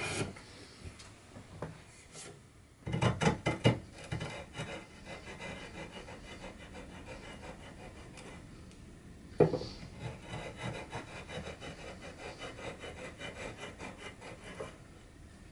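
Hand tools scraping and shaving a curved cherry chair leg: a card scraper, then a spokeshave. A short run of loud, even scraping strokes comes a few seconds in, and a single sharp knock near the middle. After the knock come faint, regular strokes at about two or three a second.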